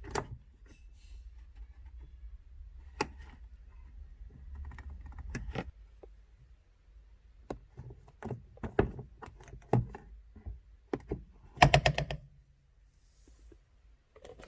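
Hand tools clicking and knocking on the metal shifter mechanism while its bottom retaining pin is spread and worked loose, with a quick run of about six sharp taps near the end.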